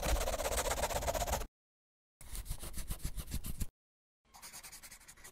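Pen-on-paper scribbling sound effects for a hand-drawn animation: three short bursts of rapid scratching with silences between, the last one softer.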